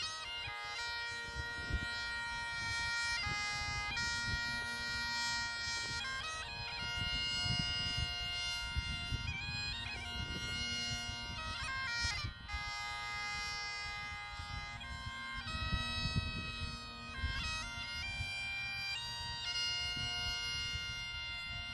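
Bagpipes playing a tune: a melody of held notes over a steady, unbroken drone, with quick grace-note flourishes between the notes.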